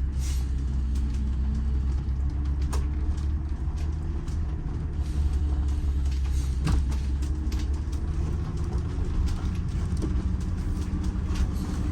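Detroit Diesel 6-71 two-stroke inline-six diesel engine in a bus, running steadily under heavy load on a hill climb: a low drone with a couple of faint knocks. The engine is short of power, with low compression in some cylinders.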